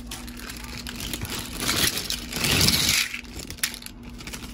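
Dehydrated potato slices from a boxed potato mix being poured into a pan of milk and water, a dry rustling and crunching that swells to its loudest between about a second and a half and three seconds in. A faint steady hum runs underneath.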